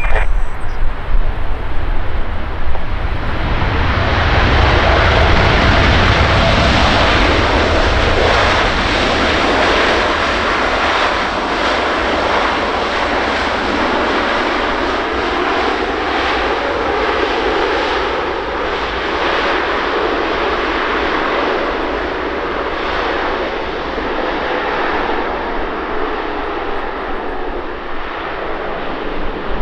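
Airliner landing: a steady engine roar that swells over the first few seconds, then slowly eases off, with a faint engine whine that bends in pitch under it.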